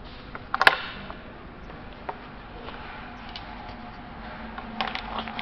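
Sharp metal clicks and knocks as an aluminium housing, a steel pin and a T-handle hex key are handled on a workbench. The loudest is a quick cluster of clicks about half a second in, with a few lighter ticks later, over a faint steady low hum.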